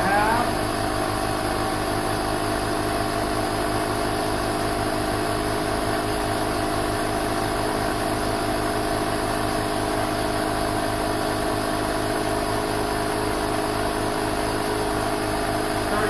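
12-volt portable tire inflator running steadily as it pumps up a spare tire: an even motor-and-piston drone with a fast, regular low pulsing.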